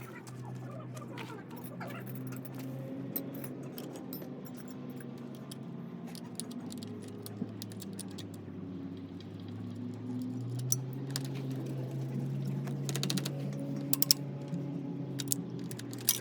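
Metal tools and engine parts clinking and rattling in scattered sharp clicks, busier in the second half, over a low steady hum.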